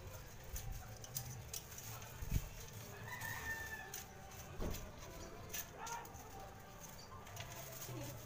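A rooster crowing faintly, one call about three seconds in, against low background noise.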